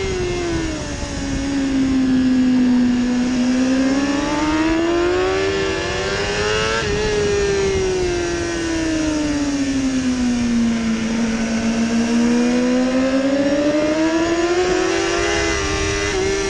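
BMW sport bike's inline-four engine heard on board at speed, with wind rushing over the microphone. Its pitch sinks and climbs twice as the rider comes off the throttle and accelerates again through corners, with quick steps in pitch from gear changes about a second in and near the end.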